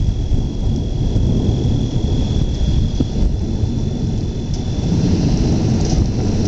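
Thunder rumbling low and long without a sharp crack, over a faint hiss of rain.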